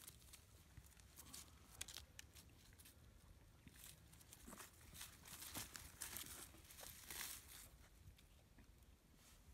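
Faint rustling and crackling of dry fallen leaves as a baby goat and a man shift about on them. The crackles are scattered at first and come thicker for a few seconds in the middle.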